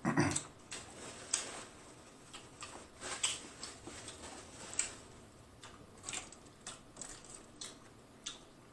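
Close-up chewing: irregular soft wet clicks and smacks of a mouth working on food, a few to a second.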